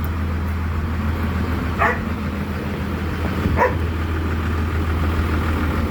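Engine running steadily with a low hum, with two short calls about two and three and a half seconds in.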